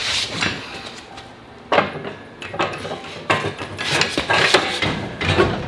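Cast-iron Mitsubishi 4G63 engine block being manhandled onto an engine stand's mounting head: a run of irregular metal clanks, knocks and scrapes as iron meets steel.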